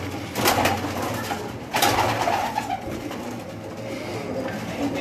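Many domestic pigeons cooing inside a small loft, with a few sudden sharp noises about half a second in and again near two seconds in.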